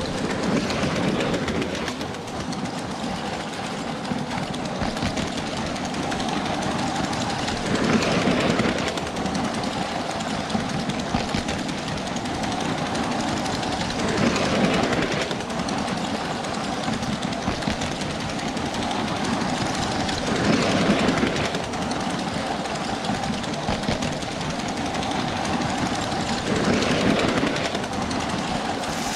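Motorised Lego toy train running on plastic track: a steady whirring motor and clattering wheels, swelling louder about every six seconds.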